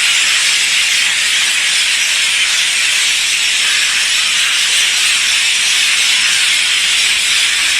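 Huge flock of birds calling all at once as they gather to roost in a tree at dusk, the countless calls blending into one loud, steady, high-pitched din.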